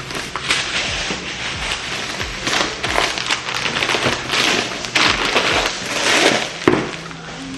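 Grocery bags and packaging rustling and crinkling in irregular bursts as groceries are unpacked.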